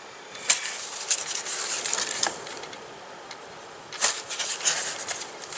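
Prismacolor colorless blender pencil scratching over a sanded Pastelbord surface in quick short strokes, in two spells of about two seconds each, blending the layers of colored pencil.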